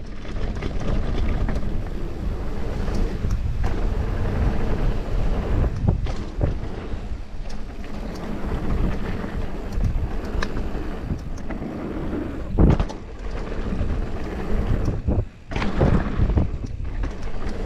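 Mountain bike descending a dirt trail: wind buffeting the microphone and the tyres rumbling over dirt, with steady rattling and clicking from the bike. There are frequent small knocks, a loud hard knock about two-thirds of the way through, and a brief lull shortly after.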